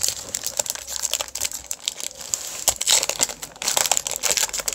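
Foil wrapper of a Pokémon booster pack crinkling as it is handled and opened, a dense crackle that grows louder in the second half.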